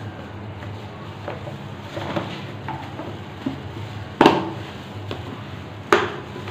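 Ice-cream container being closed up by hand: light clicks and handling noises, then two sharp knocks, the second under two seconds after the first, over a low steady hum.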